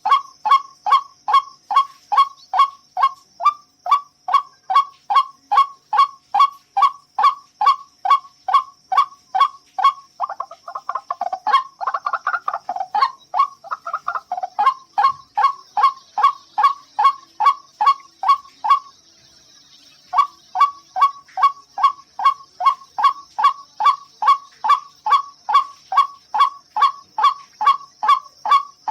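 White-breasted waterhen (ruak-ruak) calling: loud, harsh notes repeated about two and a half times a second, breaking into a rougher, jumbled stretch near the middle, then stopping briefly and starting up again.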